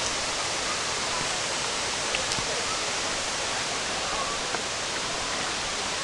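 Steady rushing of a waterfall, an even wash of water noise, with faint distant voices of people mixed in.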